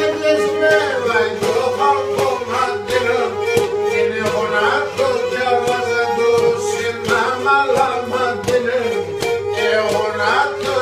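Instrumental Pontic Greek folk music: a bowed string melody over a steady held drone note, with regular percussion strokes keeping the beat.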